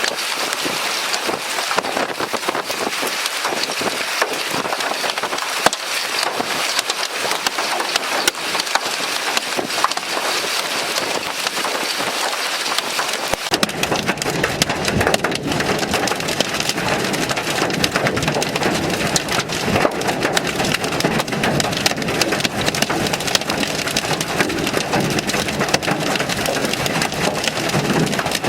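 Hail and heavy rain pelting a hard surface: a steady, dense clatter of sharp impacts over a hiss of rain. About halfway through, a deeper rushing sound joins in abruptly.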